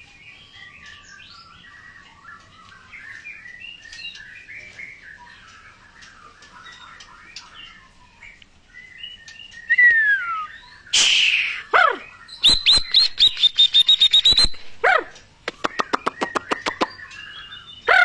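Many caged birds chirping and chattering faintly, then from about ten seconds in a nearby white-rumped shama (murai batu) calls loudly: a falling whistle, a rapid run of sharp repeated notes about ten a second, then more whistles and note runs.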